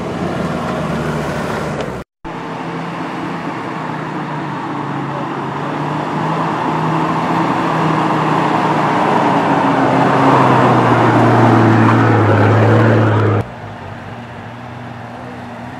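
Off-road 4x4 engines running under load as the vehicles crawl a forest trail. After a short dropout about two seconds in, a Nissan Patrol's engine grows steadily louder as it approaches. A little before the end it cuts abruptly to a quieter engine from a UAZ.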